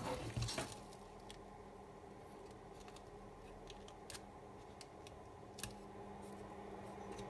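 A few light clicks over a faint steady hum while an old laptop is operated to shut it down.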